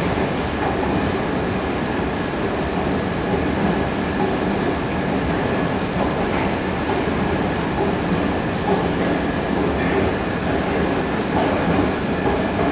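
Metro station escalator running, heard from on its moving steps: a steady mechanical rumble and clatter with a faint, steady high whine.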